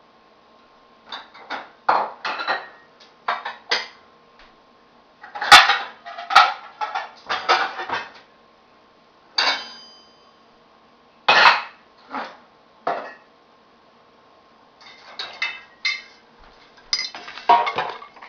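Dishes and cutlery clinking and knocking as a dishwasher is emptied and the pieces are stacked into a cupboard: irregular clatters with short pauses, one clink near the middle ringing briefly.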